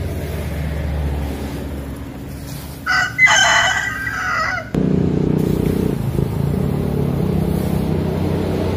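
A rooster crows once, about three seconds in, over a steady low engine drone. The drone grows suddenly louder just after the crow ends.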